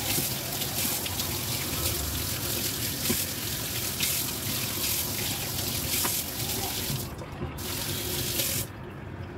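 Water running from a kitchen tap into a stainless-steel sink, splashing over pork knuckle pieces rinsed by hand in a metal bowl. The hiss of water breaks off briefly near the end, then falls away just before the end.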